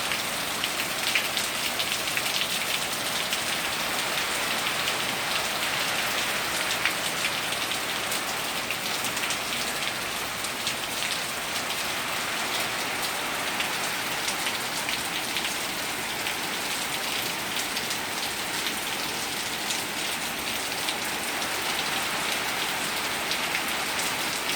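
Heavy rain falling steadily from Hurricane Matthew's rainbands, a dense hiss of drops hitting surfaces.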